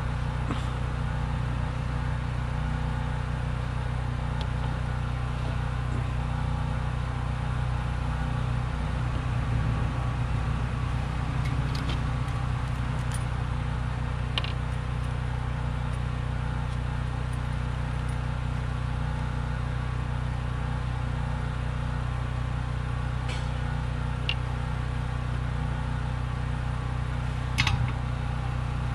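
A steady low hum of a running machine, with a few short faint clicks scattered through it and a slightly louder one near the end.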